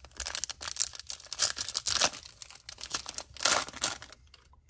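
A Bowman baseball card pack's wrapper being torn open by hand, crackling and crinkling for about four seconds, loudest near the end.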